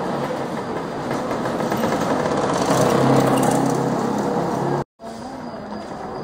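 A car driving over cobblestones, heard from inside the cabin: steady tyre rumble with a low engine hum, growing a little louder toward the middle. About five seconds in it cuts off abruptly to quieter street ambience.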